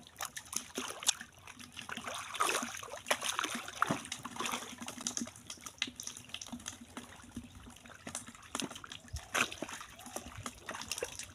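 Shallow muddy water splashing and sloshing in irregular bursts as feet and hands work through it, groping in the mud for fish by hand.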